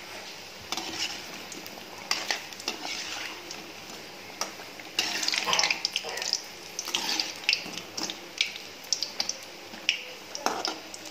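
Soya vadai deep-frying in hot oil in a metal kadai, a steady sizzle, with a metal spoon scraping and clinking against the pan as the vadais are turned. The clinks come in quick clusters from about two seconds in.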